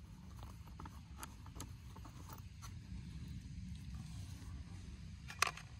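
Faint clicks and light scraping from handling the small blade screw and the steel blades of a robotic mower's cutting disc, with one sharper click near the end, over a steady low rumble.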